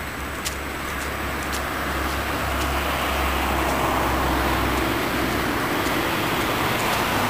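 Vintage Wrocław Standard-type tram rolling toward the listener on its rails, growing steadily louder as it nears, over a low steady hum.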